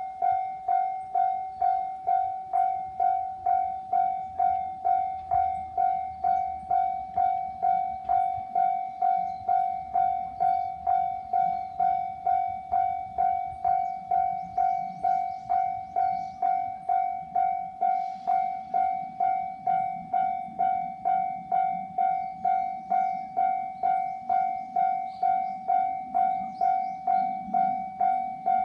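Japanese railway level-crossing warning bell ringing steadily, a little under two strikes a second, each one clear and decaying. A low rumble builds over the last several seconds as a train approaches.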